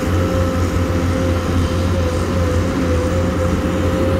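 XCMG XE215C crawler excavator's Isuzu 6BG1 six-cylinder diesel engine running steadily as the machine works its boom, a deep even drone with a steady high whine over it.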